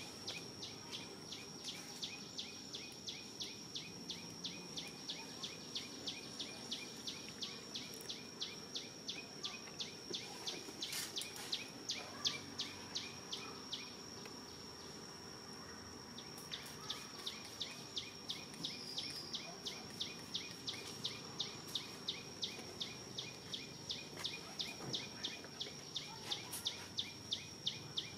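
Insects calling: a steady high whine with a rapid, even train of chirps about three a second, which pauses for a couple of seconds about halfway through and then resumes.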